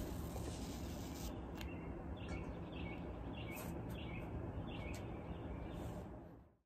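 Outdoor background noise with a bird giving a run of short repeated chirps, about two a second, from about two to four seconds in. The sound fades out near the end.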